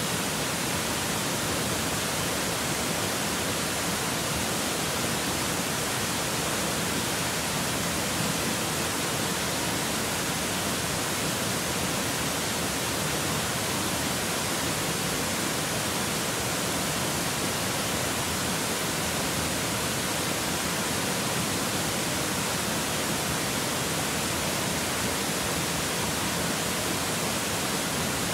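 Mountain stream water rushing steadily over rocks, an even hiss with no change in level.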